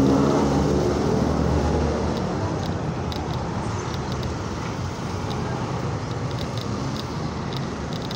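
A car passes close by, its engine loud at first and fading over the first two seconds. Steady road traffic noise follows, with scattered light clicks.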